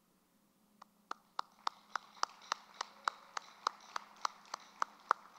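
A steady beat of sharp, evenly spaced strikes, about three and a half a second, starting nearly a second in.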